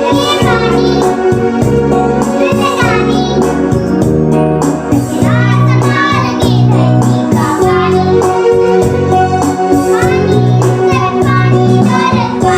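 Children singing a song together with musical accompaniment that has a steady repeating bass.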